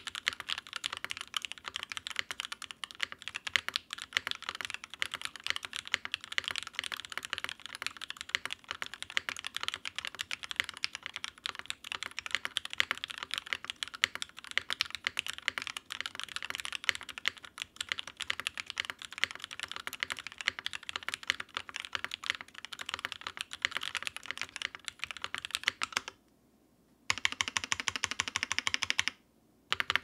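Fast, continuous typing on a Noxary 378 mechanical keyboard with lubed Cherry Top JWK Soho switches on Gateron Yellow springs, mounted on a 5mm polycarbonate plate and capped with GMK keycaps: a dense clatter of keystrokes. Near the end the typing stops briefly twice.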